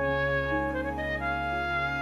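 Background music: held notes changing every half second or so over a steady low bass.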